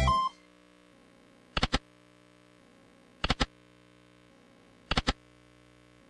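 Slot machine game music cutting off just after the start. Then come three short sets of quick double clicks from the slot machine, about a second and a half apart, over a faint steady hum.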